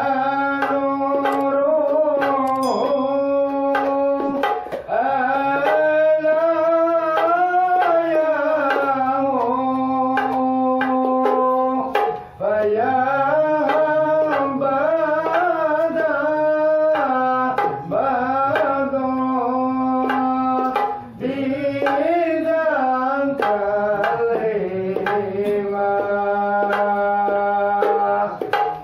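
Hadrah Ishari sholawat: voices singing one melody in long, bending held notes, with hand-struck hadrah frame drums beating throughout.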